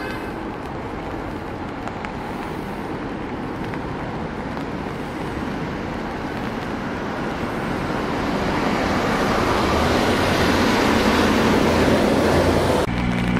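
Megabus Yutong GT12 coach pulling away and approaching, its engine and tyre noise growing louder over the last few seconds as it passes close by. The sound cuts off suddenly near the end.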